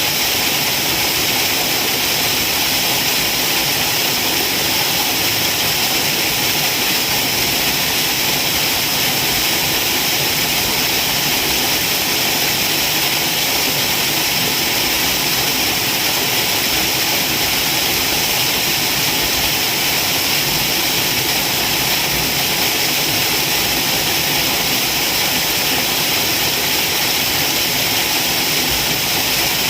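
Waterfall: falling water making a loud, steady, even rush with a bright hiss.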